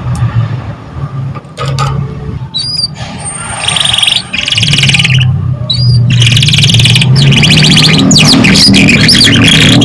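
Canary singing: a couple of short whistled notes that swoop up and back down, then fast rattling trills. From about six seconds in these become continuous rolling song, over a low steady hum.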